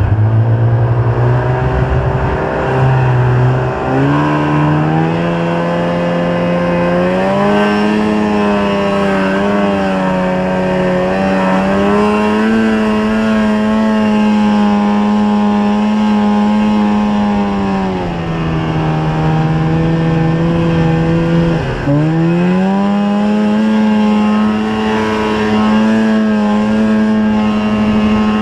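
Snowmobile engine running under way. It speeds up over the first several seconds, holds a steady pitch, eases off about two-thirds of the way through with a brief dip, then climbs again.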